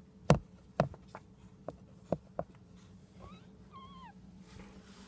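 Several dull knocks from a phone being handled and bumped about. Then, about three seconds in, two short high whimpers from a small dog, the second wavering and falling in pitch.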